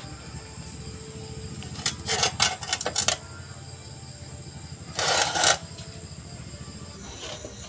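Metal parts clinking and rattling in two short bursts, about two seconds in and again about five seconds in, over a steady low hum.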